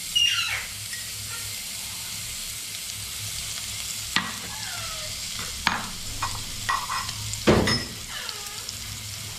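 Chopped garlic with cumin and mustard seeds sizzling in hot oil in a stainless-steel kadhai: a steady frying hiss, the tempering (tadka) stage of a dal. A few sharp clicks or knocks sound through it, the loudest about seven and a half seconds in.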